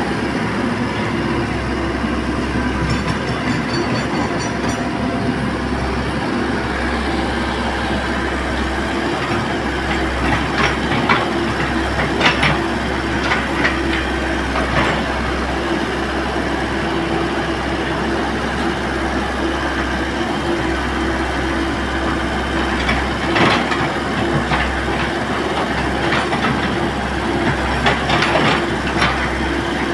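Komatsu hydraulic excavator running, its diesel engine giving a steady hum with a constant tone, with occasional sharp knocks scattered through it.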